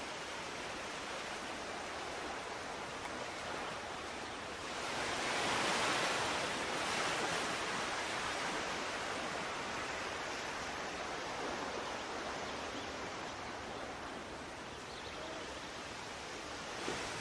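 Steady rushing, water-like noise of aquarium water circulation, swelling louder for a couple of seconds about five seconds in.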